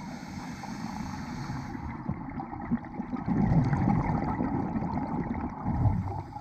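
Underwater sound of a scuba diver breathing through a regulator. A faint hiss of inhaling comes first, then a louder rush of exhaled bubbles from about three seconds in.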